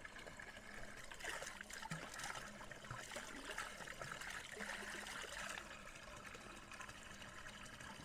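Water running steadily from the spout of a natural roadside spring fountain.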